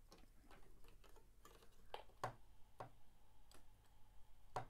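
Faint, scattered clicks and taps, about eight in all, from handling a handheld speaker microphone and plugging its connector into the radio.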